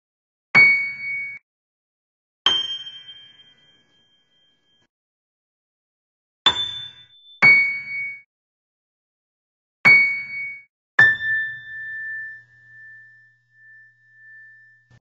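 Six single struck bell-like metallic notes at different pitches, spaced irregularly, each ringing and dying away. The last note rings the longest.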